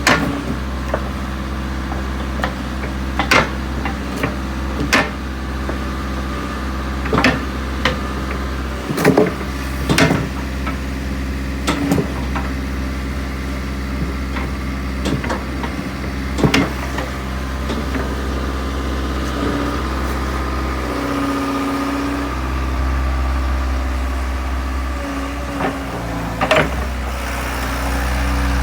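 JCB 8080 midi excavator's diesel engine idling steadily, with a dozen or so sharp clunks and knocks spread through it.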